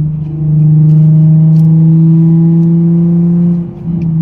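Nissan 370Z's 3.7-litre V6 engine under way, a loud steady drone at one constant pitch that dips briefly near the end before picking up again.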